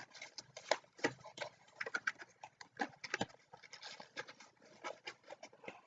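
Faint, irregular clicks, taps and rustles of a trading-card box's packaging being handled and opened by hand.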